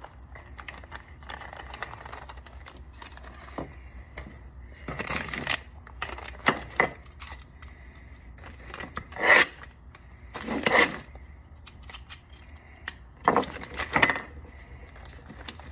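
A clear plastic parts bag crinkling and rustling in irregular bursts as it is handled and opened, with a few small clicks of parts being handled.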